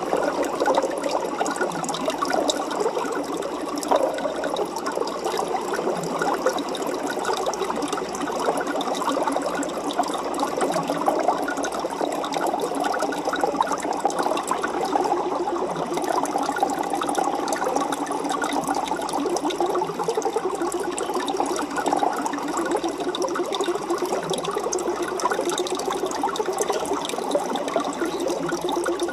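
Aquarium water bubbling and trickling steadily, a dense fine crackle of small splashes and bubbles.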